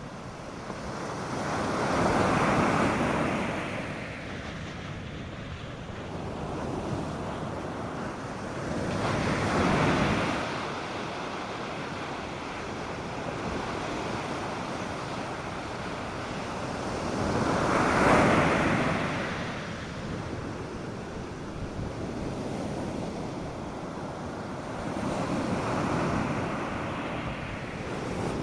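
North Sea surf breaking on a sandy beach. Four waves swell and wash in, roughly eight seconds apart, the third the loudest, over a steady hiss of water.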